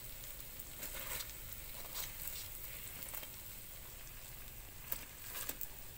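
Food frying in oil in an electric skillet: a steady soft sizzle with scattered small crackles.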